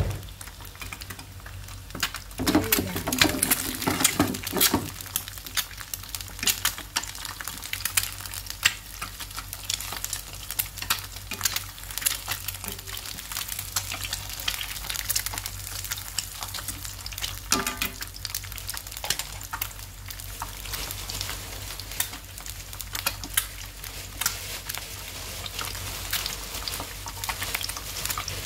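Eggs frying in oil in a nonstick pan, a steady sizzle full of small crackling pops. A louder stretch comes a couple of seconds in, and chopsticks work the egg in the pan partway through.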